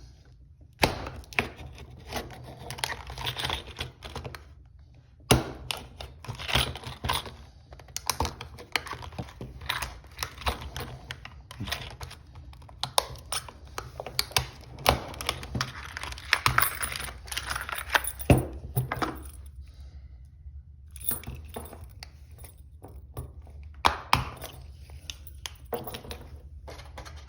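Lock pick and tension wrench working the pins of a Brinks four-pin weather-resistant padlock: scattered light metallic clicks and scrapes, with a few sharper knocks, over a steady low hum.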